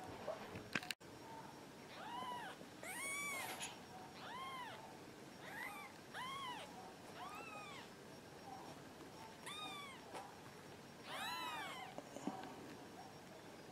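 Nine-day-old Persian kittens mewing: short, high-pitched mews, each rising and falling, repeated over and over from about two seconds in.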